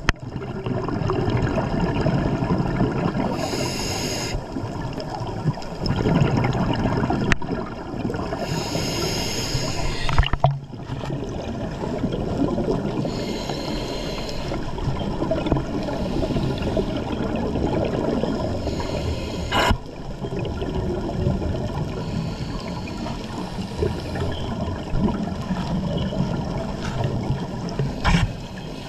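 Water gurgling and bubbling.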